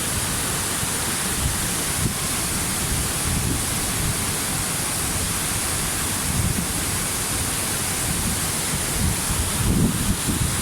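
Waterfall: a steady rush of falling water, with a few low buffets near the end.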